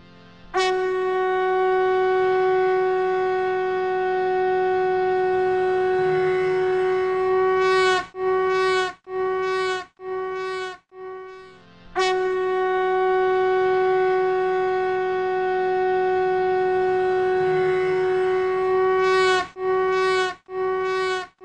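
Conch shell (shankh) blown in one long steady note of about seven seconds, then three short blasts; a second long note follows, ending in more short blasts near the end.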